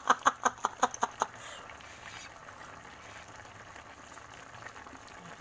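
A woman laughing in a quick run of about eight short ha's over roughly a second, then the faint steady bubbling of a pot of chicken stew simmering on the stove.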